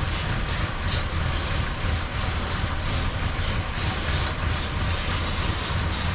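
Buick Rendezvous V6 engine idling roughly with a misfire on all six cylinders, with uneven bursts of hissing over the engine sound. The mechanic suspects it is running rich and flooding.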